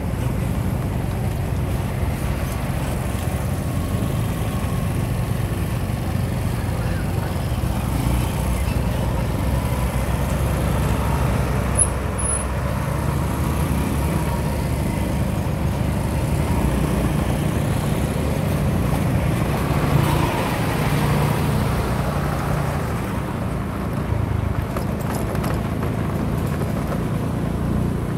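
Engine of a moving vehicle running steadily, with a low rumble from the rough dirt road and wind.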